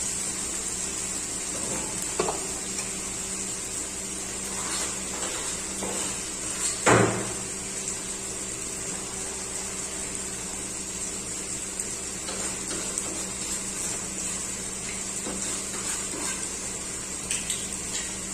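Cooking pots and utensils knocking and clinking now and then, with one loud metal clank about seven seconds in, over a steady hiss and a low hum.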